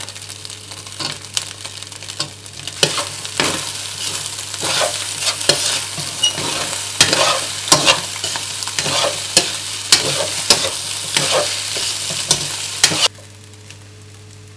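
Fried rice with pineapple chunks sizzling in a hot wok while a metal spatula stirs and scrapes through it, with frequent sharp clicks of the spatula against the wok. The sound stops abruptly near the end, leaving only a faint low hum.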